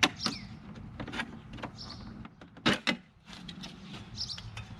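Sharp clicks and knocks of parts being handled as a motorcycle headlight bezel is worked loose, the loudest two close together a little over two and a half seconds in. A low steady hum comes in just after three seconds.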